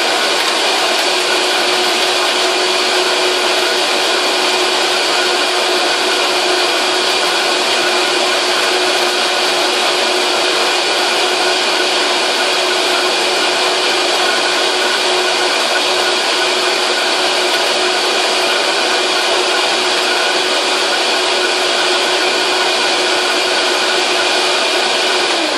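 High-powered countertop blender running steadily as it purées a thick chocolate shake mixture. Its motor is switched off right at the very end and starts to wind down.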